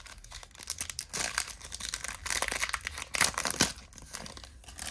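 Plastic wrapping on trading-card packaging being crinkled and torn open by hand: a run of irregular crackling and rustling, busiest in the middle.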